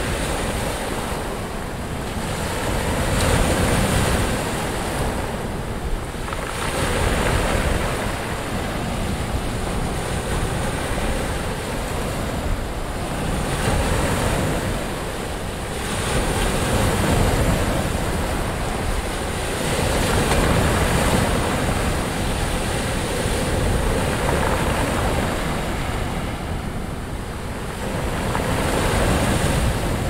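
Ocean surf: waves breaking and washing in, a continuous rush that swells and eases every few seconds.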